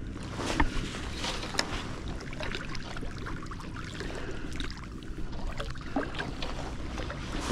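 Water lapping and wind on the microphone, with a few small knocks and clicks.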